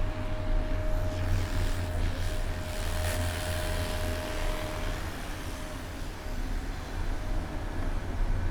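City road traffic heard from a moving bicycle: a vehicle passes close by, loudest about three seconds in, over a steady low rumble of wind and road noise on the bike-mounted camera. A faint steady whine stops about five seconds in.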